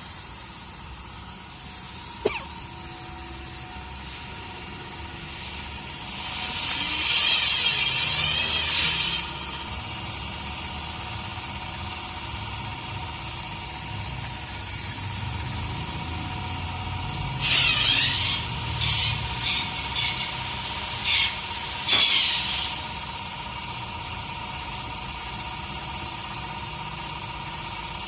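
Air spray gun hissing as it sprays paint onto a car hood: one long pass of about three seconds, then several short bursts a few seconds later. A steady hum runs underneath.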